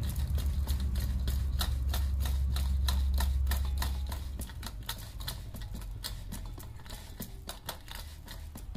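Hands patting jowar bhakri dough flat on a floured metal plate: quick, even pats, several a second. A low hum sits underneath and fades out about halfway through.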